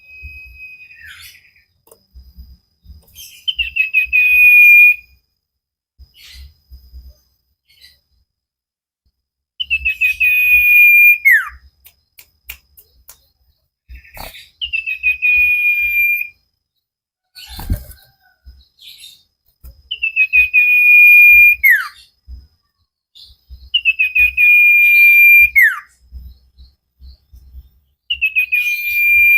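Cipoh (common iora) singing: a series of about six long, clear whistled notes, each held steady for a second or two and ending in a quick falling slur, repeated every four to five seconds.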